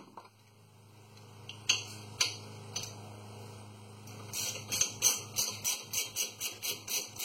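Hand ratchet clicking as a brake caliper bolt is turned out by hand: a few single clicks, then from about four seconds in a steady run of quick clicks, about four a second.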